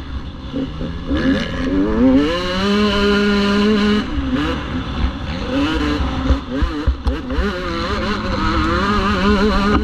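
Motocross bike engine heard from on the bike, revving up and down with the throttle: the pitch climbs and holds, drops about four seconds in, then climbs again through the gears.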